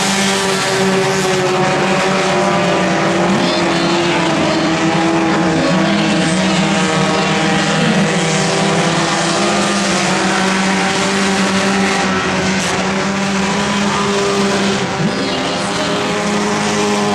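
Several front-wheel-drive race cars racing together, their engines running loud and steady with overlapping engine notes.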